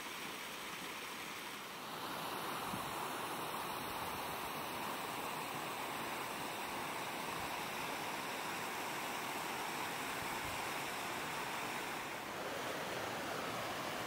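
Rocky mountain brook rushing and splashing over boulders and small cascades, a steady rush of water that gets a little louder about two seconds in.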